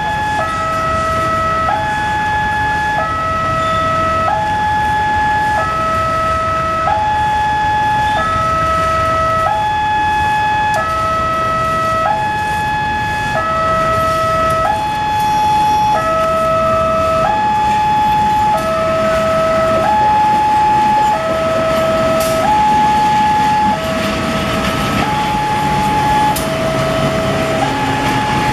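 Electronic two-tone warning alarm sounding steadily, a high note and a low note alternating about every 1.3 seconds. A low engine rumble builds in near the end.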